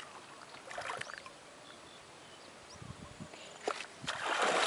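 Faint open-water ambience with scattered small clicks and a few short high chirps, and a louder rush of noise near the end.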